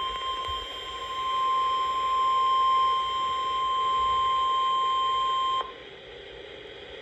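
NOAA Weather Radio 1050 Hz warning alarm tone: one steady high-pitched beep from a weather radio receiver. It cuts off abruptly about five and a half seconds in, leaving faint radio hiss. The tone signals that an urgent warning message is about to be read.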